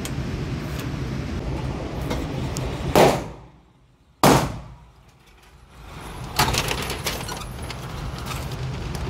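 Two gunshots from a muzzle-braked AR-style pistol in an indoor range, about a second and a quarter apart, followed about two seconds later by a weaker bang. A steady ventilation drone runs underneath.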